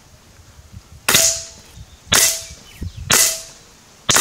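Fully regulated PCP air rifle firing four shots about a second apart. Each is a sharp crack with a short ringing note after it.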